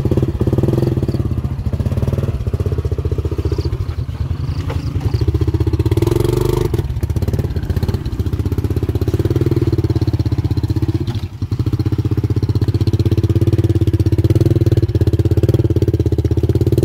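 A motor vehicle's engine running steadily with a rapid regular pulse. There is a brief dip in level about eleven seconds in.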